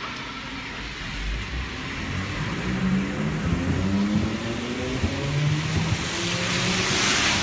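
A car drives up and passes close by on a wet road. Its engine note rises as it speeds up, then its tyres hiss loudly on the wet asphalt near the end.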